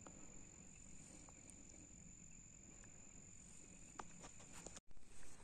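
Near silence with a faint, steady, high-pitched cricket trill that cuts off abruptly about five seconds in, and a few soft handling clicks near the end.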